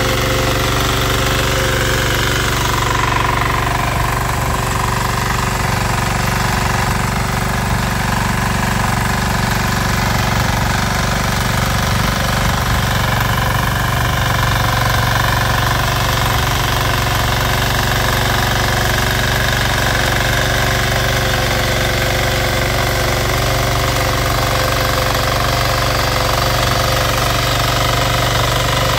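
Power weeder's engine running steadily under load while its rotary tines churn and throw soil.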